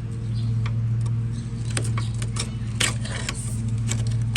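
A few sharp metal clicks and clinks of parts being handled and worked loose, over a steady low mechanical hum.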